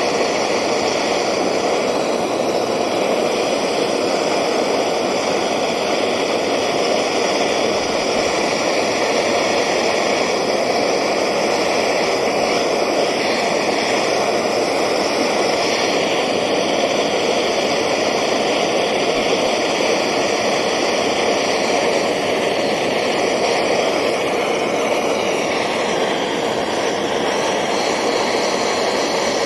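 Gas torch burning steadily with a constant, even noise, its flame played on a crucible to melt silver powder with borax.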